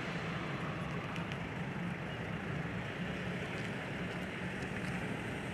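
Steady, distant rumble of the Antonov An-124's four Progress D-18T turbofan engines as the heavily loaded freighter climbs away after takeoff.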